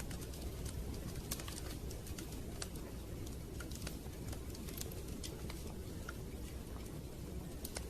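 Wood fire crackling: irregular sharp pops and snaps over a steady low rush.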